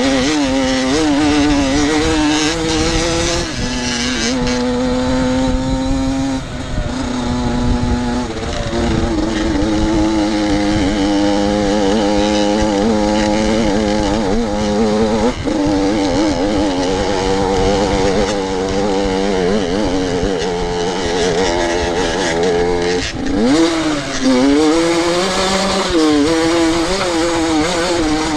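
Enduro dirt bike engine running hard under changing throttle. Its pitch holds, wavers and then jumps suddenly several times.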